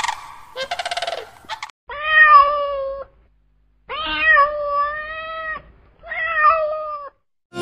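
A kitten meowing three times: long, steady-pitched meows, the middle one the longest. Before them, in the first second and a half, a bird gives rapidly pulsing calls.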